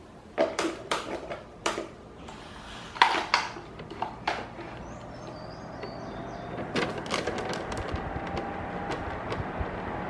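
Several clicks and knocks as the fan is switched on and the plug-in power meter is handled, then an Arno Silence Force 40 cm fan motor spinning up on its lowest speed: a faint whine rising slowly in pitch as the airflow noise builds.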